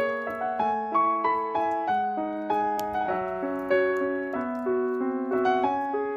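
Background piano music: a gentle, unhurried melody of struck notes, each one fading away before the next.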